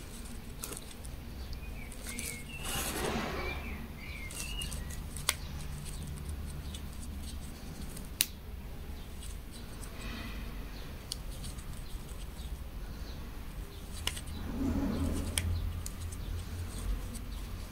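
Crochet hook and yarn being handled while slip stitches are worked: soft rustling and handling noise with scattered clicks, two of them sharp, about 5 and 8 seconds in.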